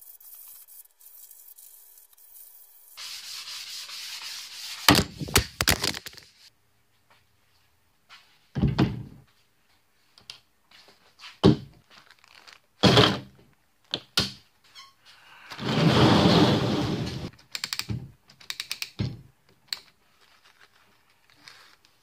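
A series of separate knocks and thunks of wooden dowel necks and hand tools being handled and set down, with two stretches of rubbing noise, one about three seconds in and a louder one about sixteen seconds in.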